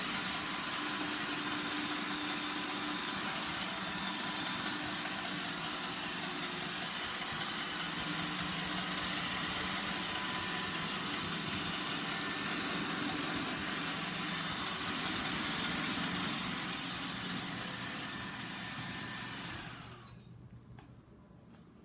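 Roomba 960 robot vacuum running: a steady mechanical hum of its vacuum motor and brushes with a few faint steady whining tones, which eases slightly and then cuts off about twenty seconds in.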